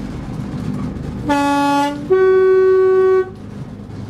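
Class 122 diesel railcar's two-tone horn sounding a warning for a level crossing: a short lower note, then a longer higher note, over the steady running noise of the railcar.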